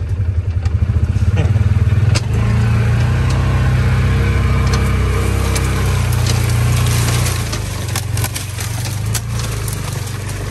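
A motor vehicle's engine running, with a fast pulsing chug for about the first two seconds, then a steadier, fuller drone. Scattered sharp clicks and knocks run over the top.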